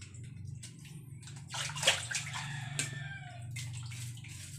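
Water splashing and sloshing in a basin as a whole fish is rinsed and scraped clean by hand with a knife, with a sharp knock about two seconds in.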